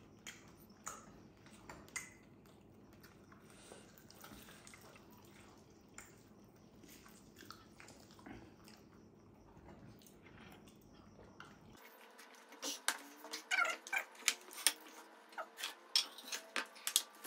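Close-up eating sounds: quiet chewing and mouth clicks for most of it, then, after a cut near the end, a quick run of sharp wet clicks and smacks.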